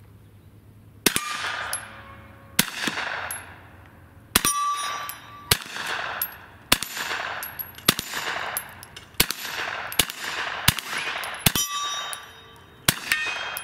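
Ruger PC Carbine in 9mm fired shot after shot, about a dozen rounds spaced roughly a second apart, each crack trailing off in an echo. Several shots are followed by a short metallic ring from steel targets being hit.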